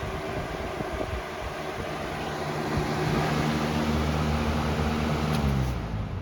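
Lasko 20-inch B20200 box fan running on high: a steady rush of air over a low motor hum, with the mild shaking that sets in at the higher speeds. About halfway through the low hum grows stronger, and near the end the rush of air falls away.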